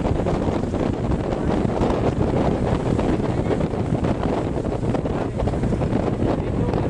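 Wind rushing over the microphone together with the steady low rumble of a bus driving along the road.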